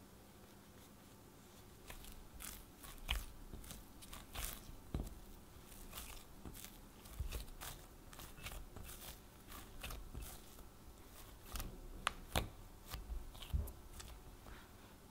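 Hands kneading a sticky bread dough of flour and water in a glass bowl: irregular squelches and taps beginning about two seconds in, with several dull thumps as the dough is pressed against the bowl.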